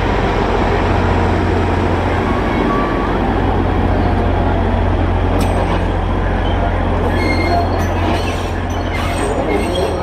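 Alishan Forest Railway diesel locomotive's engine running steadily with a deep, even hum. From about seven seconds in, thin high squeals of steel wheels on rail join it.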